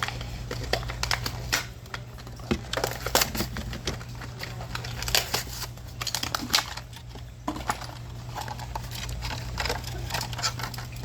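Packaging of a Majorette die-cast toy car being opened by hand: irregular crinkling, crackling and tearing of the plastic and cardboard, with scattered sharp clicks.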